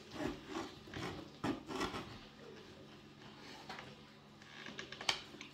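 Knife cutting through the crisp, flaky baked crust of a cabbage pie down to a wooden cutting board: a run of short crunches and taps as the layers crumble in the first two seconds, then a sharper single click near the end.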